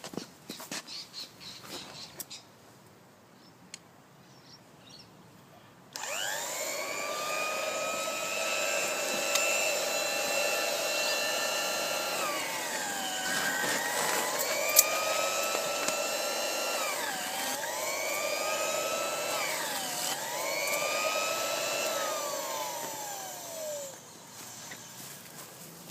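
Handheld electric round-blade cloth cutter with a 90 mm blade: after some faint handling noise it is switched on about six seconds in and spins up to a high whine. Its pitch sags and recovers several times as the blade bogs down cutting through carpet, and near the end it is switched off and winds down.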